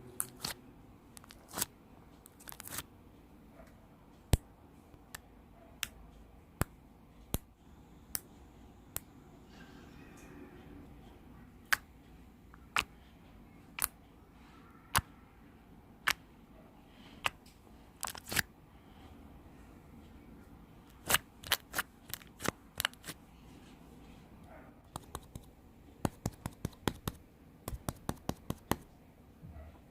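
A series of sharp, separate clicks, a second or more apart at first, then coming in quick runs of several a second near the end.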